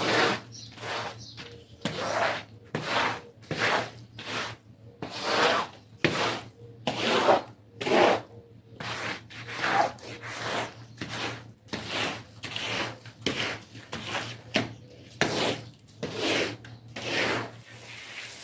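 Stiff brush scrubbing a wet carpet in repeated back-and-forth strokes, about two a second, each a short rasping swish.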